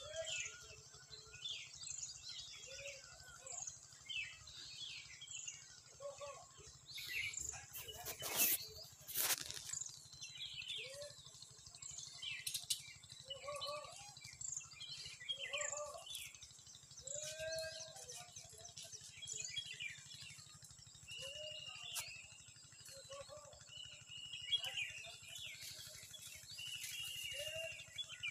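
Outdoor bird chorus: many birds chirping and calling, with a lower arching call repeating every second or two. Two brief rushes of noise come about eight and nine seconds in.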